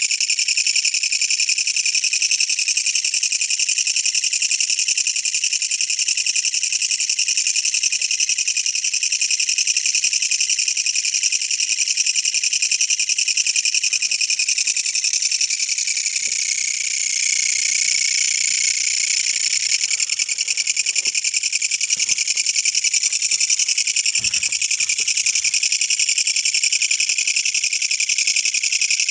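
A kutsuwamushi (Mecopoda niponensis, a large Japanese katydid) singing at close range: a loud, continuous, rapid high-pitched buzz.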